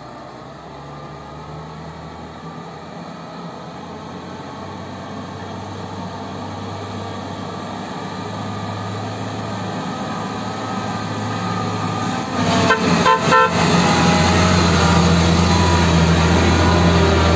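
Diesel engine of a UD Quester dump truck pulling up a dirt grade, getting steadily louder as it approaches and passes close. About three-quarters of the way through, a horn sounds a quick string of short toots.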